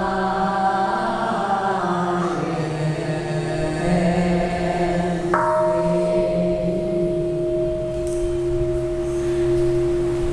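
A group chanting a Buddhist verse in unison, the voices thinning out after the first couple of seconds. A Buddhist bowl bell is struck about halfway in and rings on with a steady, sustained tone, over the fading ring of an earlier strike.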